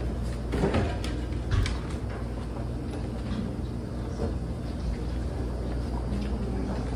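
Steady low hum and rumble of room noise, with a few faint rustles of paper as pages are turned.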